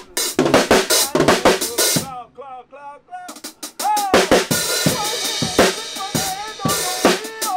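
A man singing into a microphone over a drum kit beat. The drums drop out for about a second, two seconds in, leaving only the wavering sung line, then come back in.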